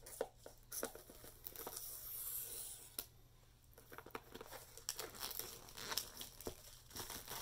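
Clear plastic shrink wrap being torn and peeled off a cardboard box, crinkling and crackling in many short rips, with a brief lull midway.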